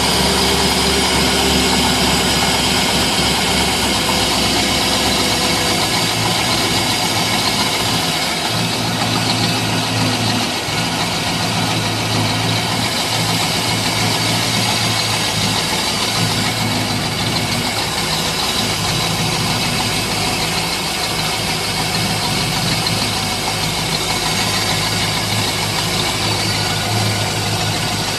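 PCM GT40 inboard V8 (Ford 351-based) in a ski boat idling steadily while it draws antifreeze from a bucket through its raw-water intake to winterize the engine. Its low note shifts slightly about six to eight seconds in.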